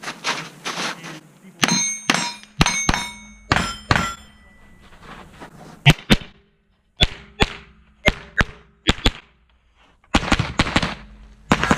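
A string of rifle shots fired at steel targets, in quick groups with short pauses, many hits followed by the ringing clang of struck steel plates.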